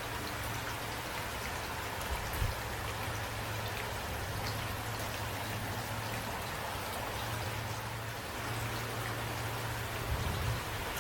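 Steady rain falling, an even hiss with scattered drops ticking through it, over a low steady rumble. Two brief low thumps stand out, about two seconds in and near the end.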